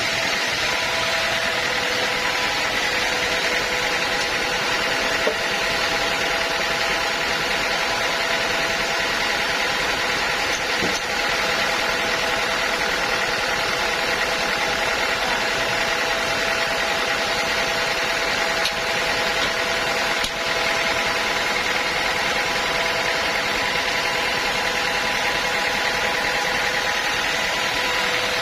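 Sawmill machinery running steadily, a constant mechanical noise with a steady whine that holds its pitch throughout.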